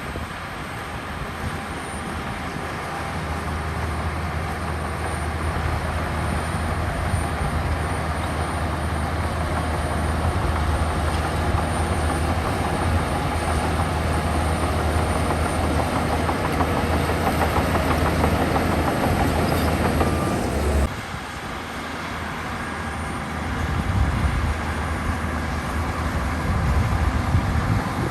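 Heavy construction machinery's diesel engine running steadily and working harder as it builds. About three-quarters of the way through the sound drops off abruptly, then builds again in uneven surges near the end.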